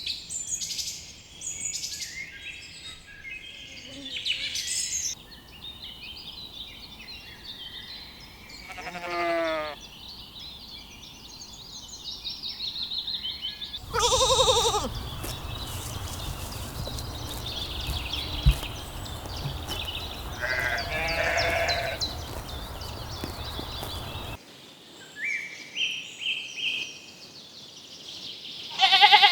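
Sheep bleating: four or five separate calls spread out, with shorter high calls in between, over a steady outdoor hiss.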